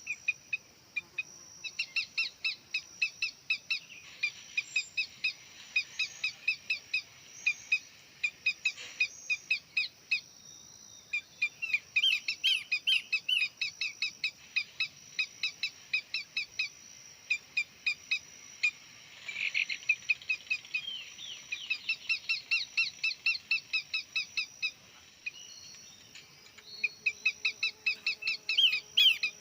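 Bird calls: long runs of sharp, evenly repeated chirps at about three a second, with short breaks. A steady high insect drone runs underneath.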